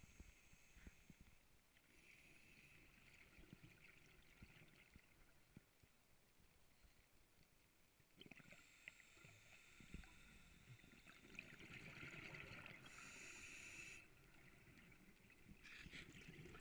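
Faint underwater sound of a scuba diver breathing through a regulator, with hissing inhalations and low bubbling exhalations and scattered light clicks throughout.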